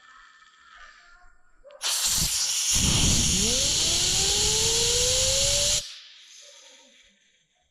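A loud blast of compressed air lasting about four seconds that starts and cuts off suddenly. Partway through, a low rumble and a steadily rising whine come in, as something spins up in the air stream.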